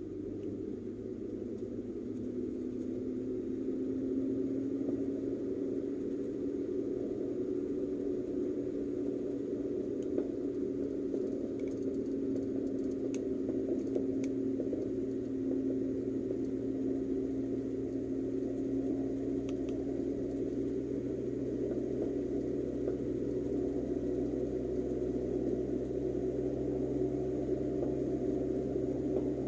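Car engine and tyre noise heard from inside the cabin: a steady drone whose pitch rises a little over the first few seconds as the car picks up speed, then holds.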